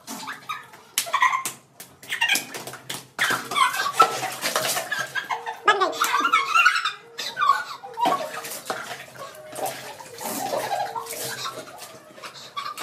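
Water splashing and sloshing on a wet concrete floor as it is scooped and thrown from bowls and buckets, mixed with shrieks and laughter.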